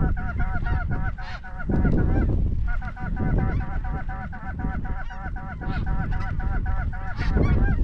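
Snow goose calls: a fast, even run of high honks, about five a second, with a brief break about two and a half seconds in, over a low rumble.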